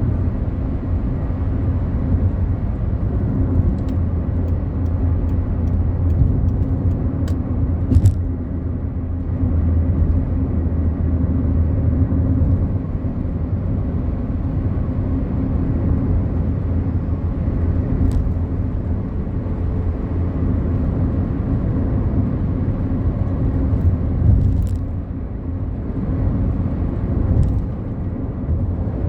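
Fiat Palio Fire driving at road speed, heard from inside the cabin: a steady low engine and tyre rumble, with a few brief knocks scattered through it.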